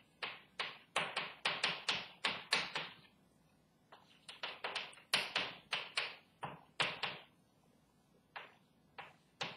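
Chalk tapping against a chalkboard with each stroke of handwriting. A quick run of sharp taps comes first, then a pause of about a second, a second run, and a few scattered taps near the end.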